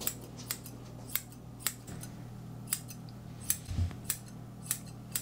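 Grooming scissors snipping through a miniature schnauzer's face and beard hair: about ten crisp snips, roughly one every half second, over a low steady hum. A short low thump comes just past the middle.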